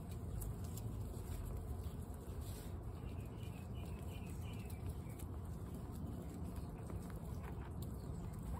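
Guinea pigs crunching and chewing dry pellets from steel bowls: a steady patter of small crunches and clicks.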